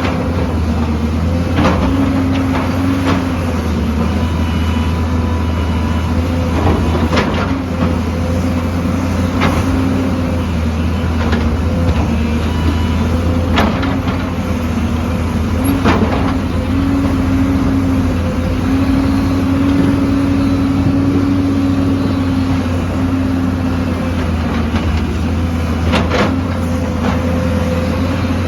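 Excavator's diesel engine running steadily under varying load, its pitch rising and falling slightly, with a few sharp metallic clanks, about five in all.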